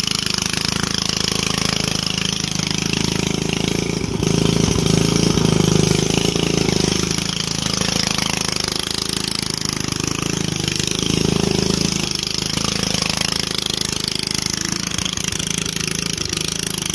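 An engine or motor running steadily. It grows louder for a few seconds about four seconds in, and again briefly about eleven seconds in.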